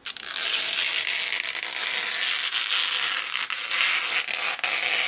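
Protective plastic backing being peeled off a sheet of FEP film: a continuous ripping hiss with a few sharper clicks in it.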